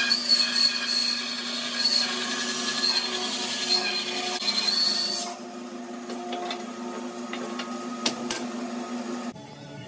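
Bandsaw resawing a soft maple board lengthwise in half: a loud cutting noise with a steady high whine until about five seconds in, when the blade comes out of the cut. The saw then runs on freely, with a couple of sharp clicks near the end.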